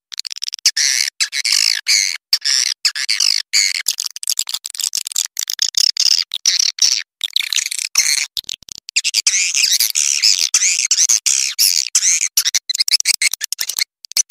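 Swiftlets twittering: dense, overlapping high chirps and chittering with many short gaps. This is a swiftlet call recording of the kind played to lure swiftlets in to roost in a swiftlet house.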